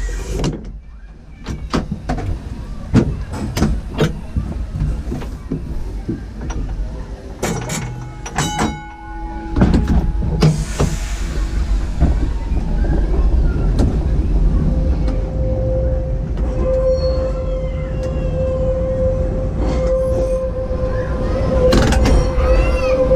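W-class electric tram car standing at a stop and then pulling away: scattered clicks and knocks, a short ringing tone about eight seconds in, a burst of hiss about ten seconds in, then a steady hum that grows as the car gets under way.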